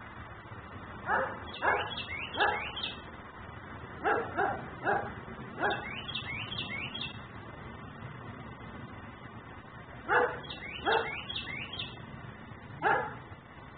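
German Shepherd barking in bouts: about ten barks in groups of two to four, with a pause of a few seconds in the middle. A small bird chirps in quick rising runs behind it.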